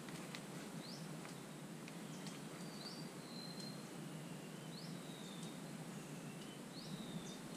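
Faint bird calls: short whistled notes, each rising quickly and then levelling off, repeated every second or two over a steady outdoor hiss, with a few faint clicks.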